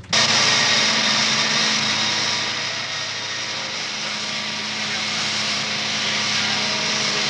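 The Polonez's four-cylinder petrol engine running at a steady speed on a test stand: a continuous hum with a hissy top that cuts in abruptly at the start.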